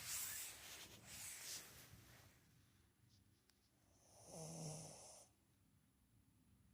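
Slow snoring: a long noisy breath at the start, then another about four seconds in with a short low buzz.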